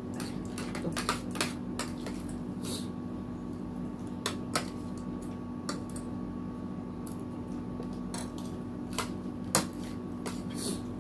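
Metal forks and spoons clinking and scraping against ceramic plates and a soup bowl while eating, in irregular light clicks with one sharper clink near the end, over a steady low hum.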